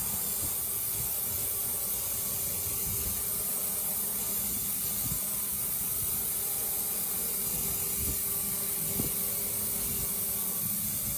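CNC router spindle cutting into a clamped wooden board: a steady, even hiss of cutting with a faint constant tone beneath it.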